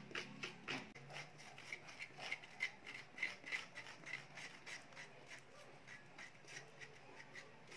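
Metal spoons scraping the flesh out of halved green banana peels, a quick rhythmic scrape about three strokes a second.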